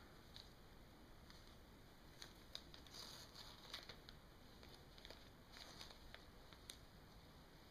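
Near silence, with faint scattered rustles and small ticks of fly-tying materials being handled at the vise.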